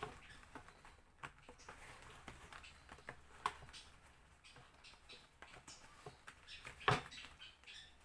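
Handling noise as a cloth filter bag and plastic motor head are fitted into a stainless steel vacuum tank: scattered small clicks, rustles and squeaks, with a sharper knock about seven seconds in.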